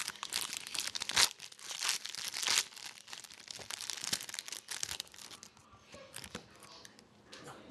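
Foil hockey-card pack wrapper being torn open and crinkled by hand: dense, crackly crinkling for the first few seconds, thinning to sparse crackles after about five seconds.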